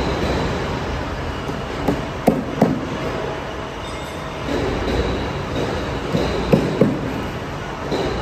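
Steady factory background noise with a few sharp knocks, two pairs of them about a third of a second apart.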